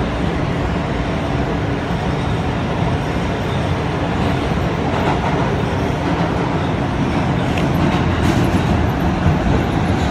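New York City subway E train running through a tunnel, heard from inside the car: a steady, loud rumble of wheels and car body on the rails.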